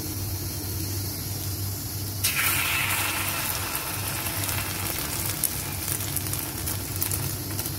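Noodlefish-and-egg omelette patties frying in hot oil in a pan: a crackling sizzle that grows louder about two seconds in. A steady low hum runs underneath.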